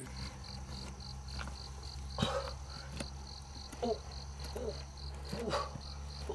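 Insects chirping in a steady pulsing rhythm, about five high pulses a second, with a few sharp clinks and some short low calls scattered through.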